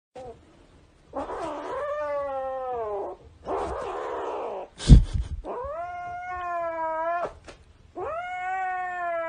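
Kitten yowling in long drawn-out meows, three of them, each sliding slightly downward in pitch, with a harsher, raspier call after the first. A sharp thump about five seconds in is the loudest sound.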